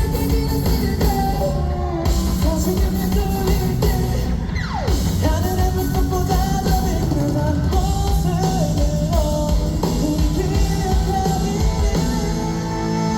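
A live rock band playing: drum kit, electric guitars and a singing voice, heard at a steady loud level. About four and a half seconds in, one note slides steeply down in pitch.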